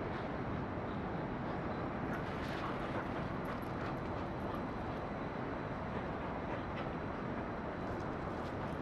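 Steady low rumbling noise of an open-air dog run, even throughout, with a few faint light ticks over it.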